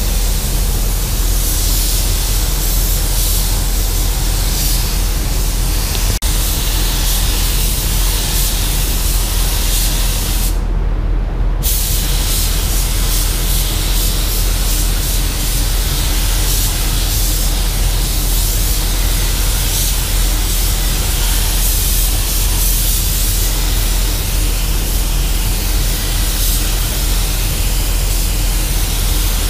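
DeVilbiss GTi gravity-feed spray gun spraying primer in a steady, loud hiss over a steady low hum; the spray stops for about a second roughly a third of the way through, then resumes.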